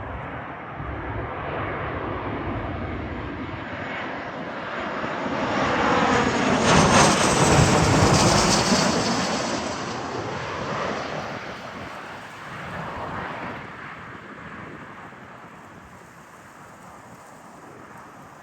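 Embraer ERJ-145 regional jet's twin Rolls-Royce AE 3007 turbofans on landing approach. The jet noise swells to a peak about seven to eight seconds in as the aircraft passes, its pitch falling, then fades away.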